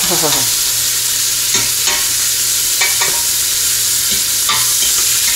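Beef stew cubes sizzling as they brown in a hot stainless steel pot. A utensil scrapes and knocks against the pot a few times as the meat is stirred.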